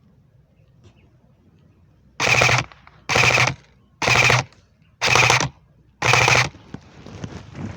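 Airsoft electric gun firing five short full-auto bursts, each a fast rattle of shots lasting under half a second, about a second apart.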